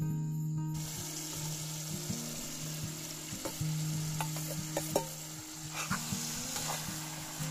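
Mushrooms, carrots and tomato sauce frying in a hot pan and being stirred with a spatula: a steady sizzle that starts suddenly under a second in, with a few sharp clicks of the spatula against the pan in the middle.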